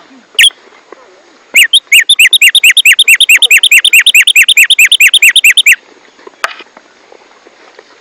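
Black-striped sparrow (tumba yegua) singing: one short note, then a loud, fast run of identical down-slurred whistles, about nine a second for some four seconds, which stops abruptly. A single sharp click follows near the end.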